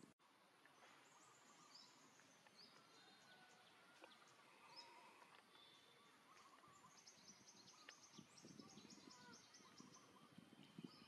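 Faint outdoor ambience with birds chirping now and then, including a quick run of short high chirps about seven to nine seconds in, over low rustling.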